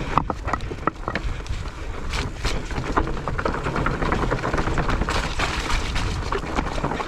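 Mountain bike riding over a rough, wet trail: tyres running over dirt and roots with a constant rumble, and frequent sharp knocks and rattles from the bike.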